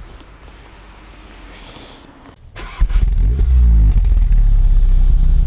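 Volkswagen Golf 7 R's 2.0-litre turbocharged four-cylinder starting about two and a half seconds in, rising in revs on the start flare, then settling into a loud steady idle.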